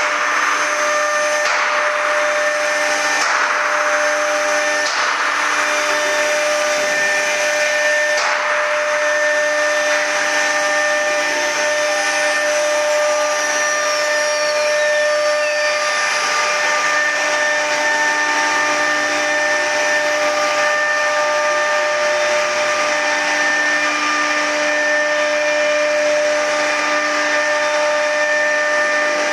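CNC router's auto-tool-change spindle running with a steady whine, while the machine's axis motors move the gantry. Faint regular ticks in the first eight seconds, and a thin falling whistle about halfway through.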